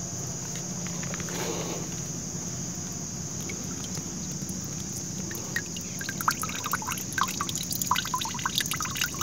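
Filtered water from a Sawyer Mini filter's outlet hose dripping and trickling into water in a collapsible bag, in quick irregular drips that start about halfway through. Crickets chirr steadily throughout.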